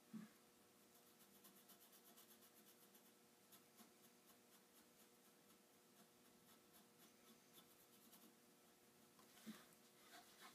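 Faint felt-tip marker scribbling back and forth on a strip of paper in quick strokes, drawing a thick ink line, over a faint steady hum.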